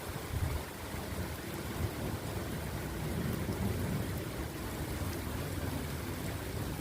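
Thunderstorm ambience: steady rain with a low, uneven rumble underneath.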